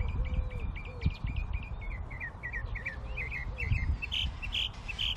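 Wild birds calling: a fast run of short, high chirps that grows louder towards the end, with a few drawn-out low notes, over a steady low rumble.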